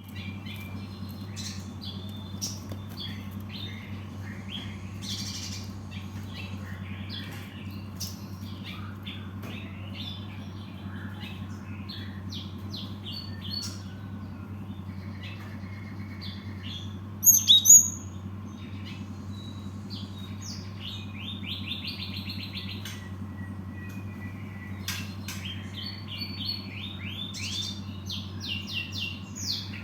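Cinereous tit (gelatik batu) calling and singing with many short high chirps and whistled notes, including quick runs of rapidly repeated notes. A loud sharp call comes a little past halfway. A steady low hum runs underneath.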